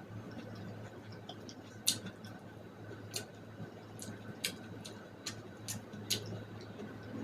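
Close-miked chewing of boiled corn on the cob: about eight sharp, wet mouth clicks and smacks at irregular intervals, over a steady low hum.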